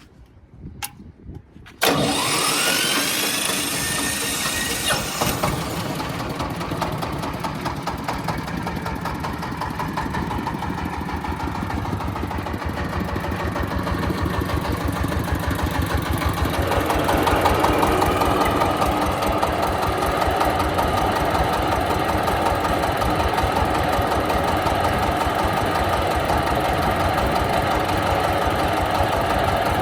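Electric-start Dong Feng 30 hp single-cylinder diesel engine on a corn sheller starting: a click, then the engine catches suddenly about two seconds in with a rising whine as the machine spins up, then runs steadily. About halfway through the sound grows louder and fuller.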